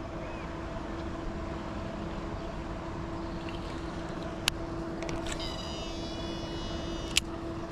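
Steady machine hum with a constant low tone. About four and a half seconds in there is a sharp click. A thin high whine follows for about two seconds and ends in a second click near the end.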